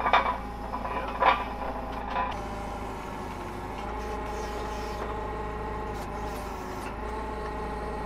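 Forklift engine running at a steady idle, with a few sharp metal clanks in the first couple of seconds as the steel shaft and plate on top of the ride's tower are handled.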